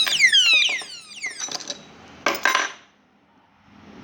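110 dB alarm padlock's siren, set off by touching the armed lock, sounding a fast run of falling electronic sweeps, about three a second. It stops about a second in and is followed by two short bursts of metallic clinking and rattling.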